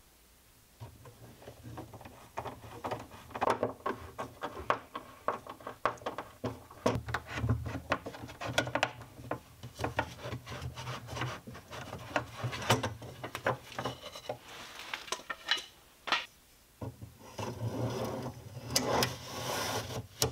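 Hands fitting a metal ball-bearing drawer slide and a bar clamp against a plywood cabinet side: irregular clicks, knocks and scrapes of metal and wood, over a low hum.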